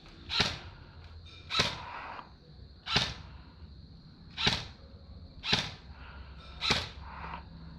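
Airsoft replica firing single shots, six sharp snaps about a second apart.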